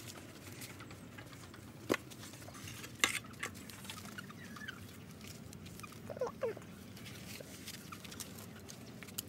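Hands scooping and packing wet mud onto clay bricks, with soft pattering and a couple of sharp knocks about two and three seconds in. Two short, falling animal calls come about six seconds in.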